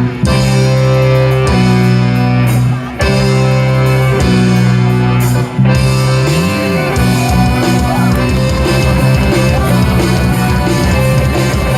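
Loud music: long held chords cut off about every one and a half seconds. About six and a half seconds in, a note bends up and back down, and the music moves into a quicker, busier part.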